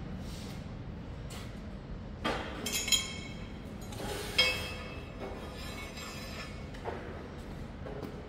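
Steel stirrer blade strips clinking against each other and the steel shaft as they are handled: a quick run of ringing metallic clinks a little over two seconds in, a sharper clink at about four and a half seconds, and a light knock near the end, over a steady low hum.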